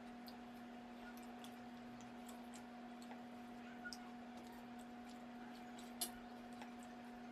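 Faint eating sounds: scattered soft, wet clicks of chewing and mouthing food, with one sharper click about six seconds in, over a steady low hum.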